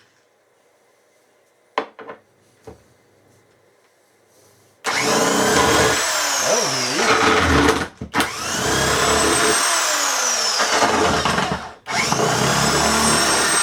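A few light clicks, then an electric power tool starts about five seconds in and runs loudly in long bursts, its whine dropping in pitch as it bogs under load on the chair's metal. It stops briefly twice and spins back up.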